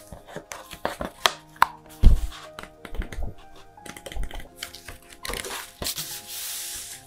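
Pages of an Arrtx A5 hardcover sketchbook with thick paper being turned and handled, with scattered taps and a dull thump about two seconds in. Near the end comes a longer rub as hands press the opened pages flat. Soft background music runs underneath.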